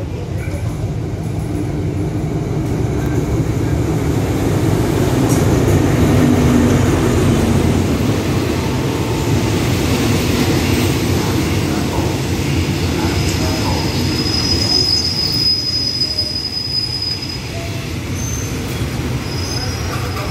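Diesel-hauled passenger train pulling into a station: the locomotive and coaches rumble past, building to a peak about six seconds in. A thin, high squeal rises about two-thirds of the way through as the train brakes to a stop.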